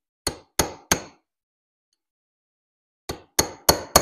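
Small ball-peen hammer tapping a metal punch to drive a piston's wrist pin back through the piston, sharp metallic clinks. Three quick taps, then after about two seconds another run of four taps near the end.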